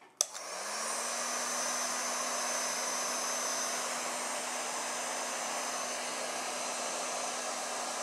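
Electric heat gun switched on with a click, its fan coming up to speed within half a second and then blowing steadily, with a low hum and a thin high whine over the rush of air, as it shrinks heat-shrink tubing over a speaker cable.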